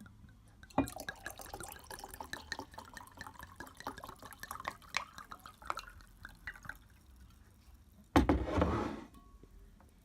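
Wine poured from a bottle into a glass: a knock as the pour starts about a second in, then about six seconds of gurgling and splashing whose pitch rises a little as the glass fills. A short, loud rushing noise comes near the end.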